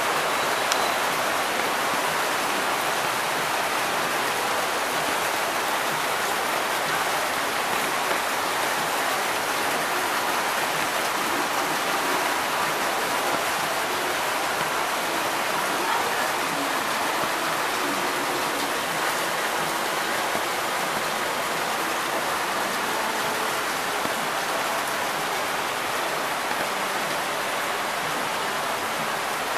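Heavy typhoon rain pouring down steadily with runoff water running, one unbroken hiss of water.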